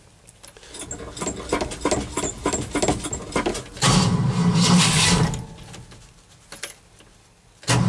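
A cold engine being cranked and failing to start. A few seconds of rapid, irregular clatter are followed about four seconds in by a burst of cranking lasting about a second and a half, and another burst begins just before the end.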